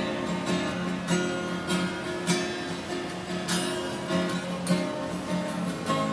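Solo acoustic guitar played with no singing: chords picked and strummed, each struck every half second to a second and left to ring.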